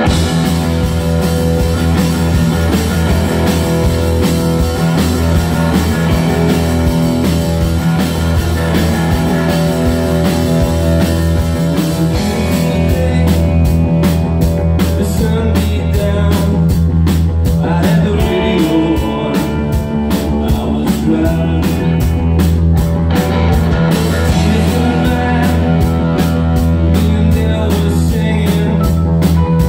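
A live rock band playing loudly: distorted electric guitar, electric bass holding low notes, and a drum kit. The drums' cymbal beat stands out plainly from about twelve seconds in.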